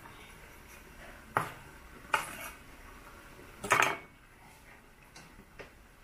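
A knife blade and wooden chopsticks clinking and scraping against a metal wok during a stir-fry: three sharp clatters, the loudest just before four seconds in, then two faint taps, over a low steady hiss.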